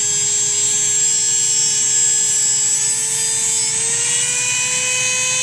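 Dremel rotary tool running with a steady high whine while grinding a wooden pencil to a point; its pitch rises slightly about four seconds in.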